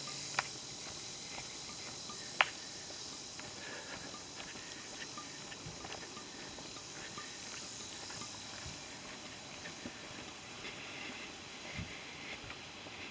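A hiker's footsteps on a dirt woodland trail, a scatter of small scuffs and ticks over a steady high insect drone. One sharp click stands out about two and a half seconds in.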